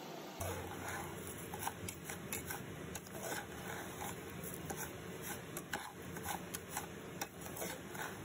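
Irregular scraping and light clicking of a utensil against a cooking pan, a few strokes a second, as food is stirred.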